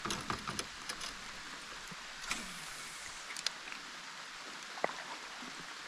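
A steady outdoor hiss of water noise, with a few scattered light clicks and knocks.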